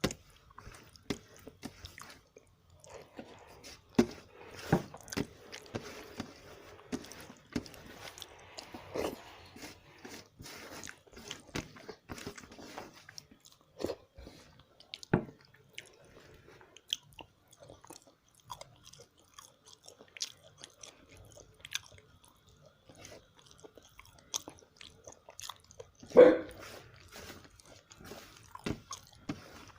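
Close-up chewing and mouth sounds of a person eating rice and curry, with irregular small clicks and wet smacks, and one louder mouth sound near the end.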